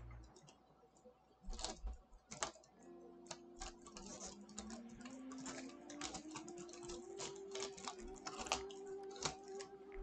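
Kapton tape being peeled off a circuit board: an irregular run of faint small crackles and clicks.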